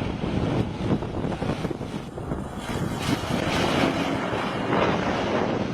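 Steady rushing noise of a light aircraft in flight, with wind buffeting the microphone.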